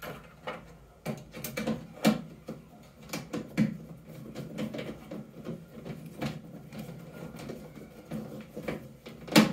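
Hand screwdriver turning a screw into a microwave oven's sheet-metal chassis: irregular small clicks and scrapes of the tool and screw on metal, with a louder knock near the end.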